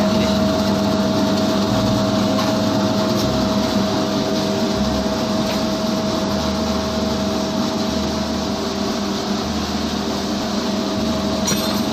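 Homemade dough mixer driven by a Maestro 1/4 hp electric motor running steadily: a constant low hum with a higher whine over it.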